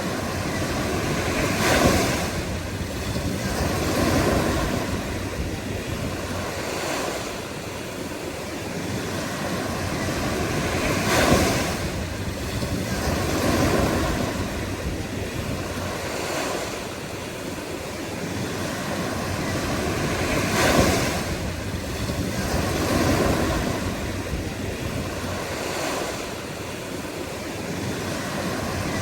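Ocean surf: waves breaking and washing in and out in repeated swells. The sharpest crash comes about every nine or ten seconds.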